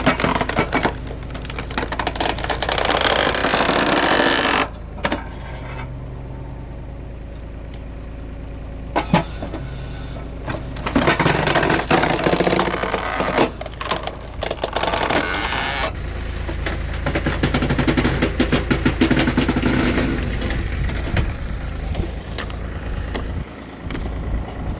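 An engine running with a steady low hum, with several long bursts of loud mechanical noise and a few sharp clicks over it.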